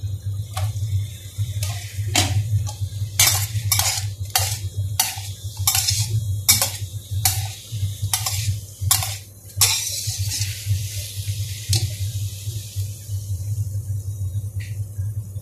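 Metal spatula scraping and clanking against a stainless steel wok while vegetables are stir-fried, about two strokes a second, stopping about ten seconds in. A steady low hum runs underneath.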